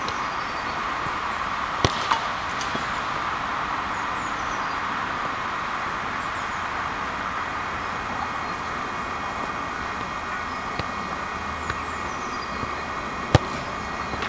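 Sharp thuds of a football being struck: two close together about two seconds in and a louder one near the end, over a steady background hiss.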